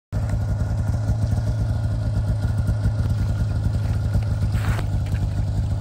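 Snowmobile engine idling steadily at a constant low pitch, with rapid, even firing pulses.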